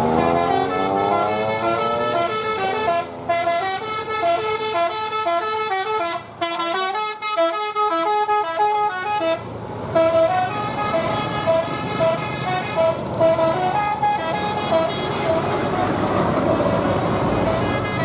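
Indonesian bus 'telolet basuri' multi-tone horn playing a tune: a rising glide at first, then a long run of short stepped notes with a few brief breaks, ending near the end.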